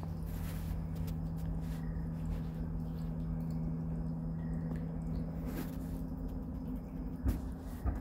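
Summer night ambience: a steady low mechanical hum under a faint, thin, high insect trill, with two sharp clicks near the end.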